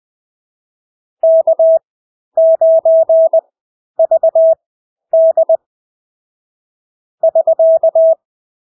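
Morse code (CW) practice tone: a single steady beep keyed into dits and dahs at 20 words-per-minute character speed, with long Farnsworth gaps between characters, giving five separate groups of beeps.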